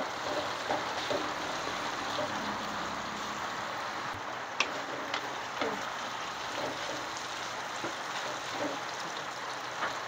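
Chopped ginger, lemongrass, garlic and shallots sizzling steadily in hot oil, frying until they turn golden, with a few faint clicks.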